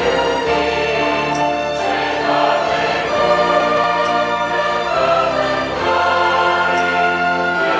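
Mixed church choir singing with a string orchestra of violins playing along, in held chords that change every second or two.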